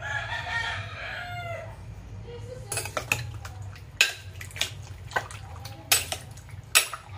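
A rooster crows once in the background, one call of under two seconds that falls in pitch at its end. Then a spoon knocks and clinks against a glass bowl about seven times as it stirs pork pieces in a soy marinade.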